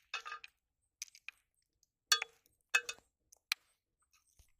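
A handful of sharp metallic clinks, about five over four seconds, some leaving a short ringing note, as a stainless steel bowl of dough bait is knocked by hands and fishing gear.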